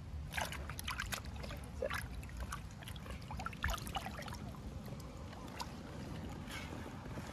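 Water splashing and trickling in short, irregular bursts as a mirror carp is slid from a wet sling into shallow pond water and swims off, with hands sloshing in the water, over a low steady rumble.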